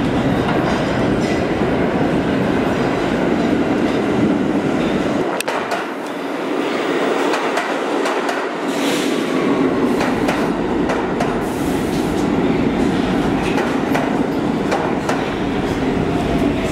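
R46 subway train coming into the station: a loud, steady rumble of the cars with wheels clacking over the rail joints. Sharp clicks come in about five seconds in and after, with a brief high hiss of wheel squeal near the middle.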